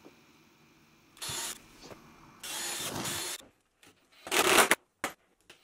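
Cordless drill running in several short bursts, drilling and driving screws into plywood; the burst about four seconds in is the loudest.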